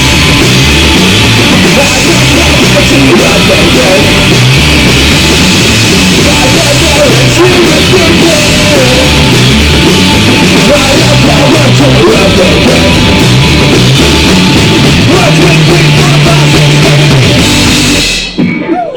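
Live rock band playing loud, with guitar, bass and drums filling the whole range. The song stops abruptly about a second before the end.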